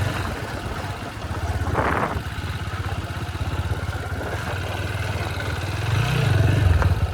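Motorcycle engine running at low speed with an even, fast pulse, picking up a little about six seconds in. There is a brief hiss about two seconds in.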